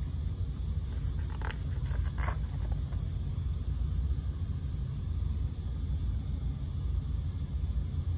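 Steady low rumble of room noise, with a few faint rustles from a picture book's pages being turned in the first couple of seconds.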